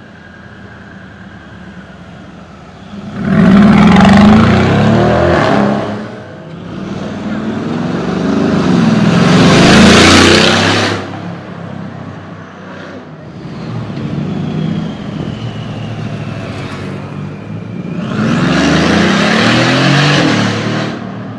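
Loud Mercedes-AMG G-Class (G-Wagon) engines accelerating hard past the listener three times: about three seconds in, again in a longer rising run about eight seconds in, and once more near the end. Quieter street traffic runs between the three.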